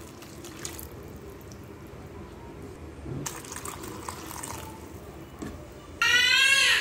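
Water poured in a steady stream into thick onion-tomato paste in a frying pan, splashing and gurgling softly. About six seconds in, a much louder, high, wavering tone with overtones sets in.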